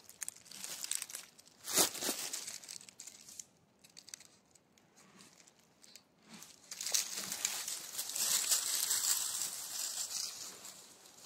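Dry fallen leaves crackling and rustling underfoot in irregular bursts, with a quiet spell in the middle and a longer stretch of crackling near the end.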